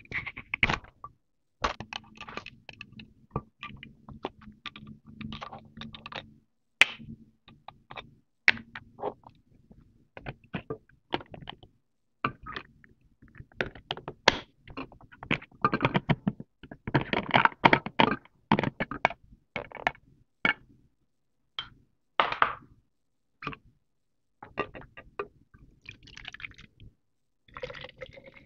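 Plastic baby bottles being handled and opened: a run of small clicks, taps and scrapes as caps and lids are twisted and snapped. Near the end, water starts pouring into a plastic bottle.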